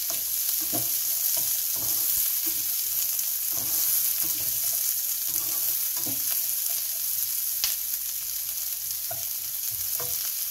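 Chopped onions and green chilies sizzling in hot ghee in a frying pan, with the irregular scrape and tap of a slotted spatula tossing them.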